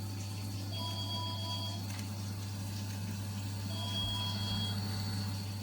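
Vaillant boiler's central-heating circulating pump running, just locked onto its maximum speed setting: a steady low hum with water flowing through the system. A faint high tone comes and goes twice, about a second each time.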